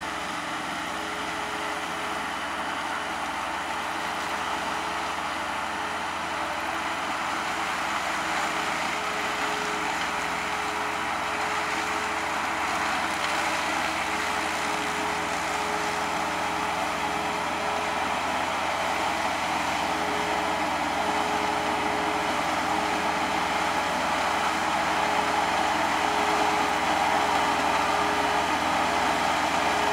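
A MarshMaster tracked amphibious mower's engine running steadily, growing gradually louder as the machine works its way closer along the bank.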